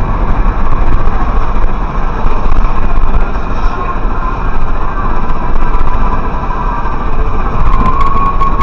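Tractor-trailer driving on a wet highway: a steady, loud drone of engine and tyre spray on the rain-soaked road.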